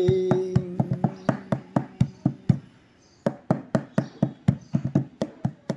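Instrumental break in a Hindi song: drum strokes at about four a second, with a held note dying away in the first half second. The drumming drops out briefly near the middle and then carries on.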